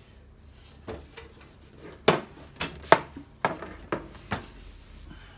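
A run of about nine wooden knocks and clunks, the loudest near the middle, as an oak pendulum clock is handled and moved away and a wooden strong box is set down on the floor.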